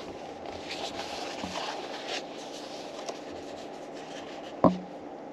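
Paper pages of a book rustling softly as they are handled and turned, with a few small ticks and one sharp knock near the end.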